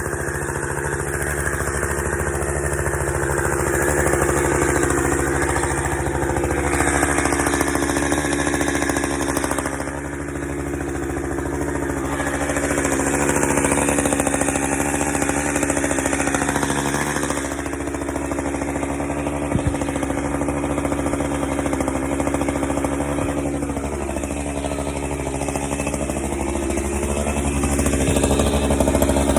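Two-stroke chainsaw running, its engine pitch dipping and recovering several times as it bogs under load in the cut.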